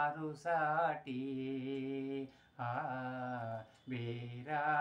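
An elderly man's voice singing a Kannada film song, drawing out long held notes with short breaks for breath between them.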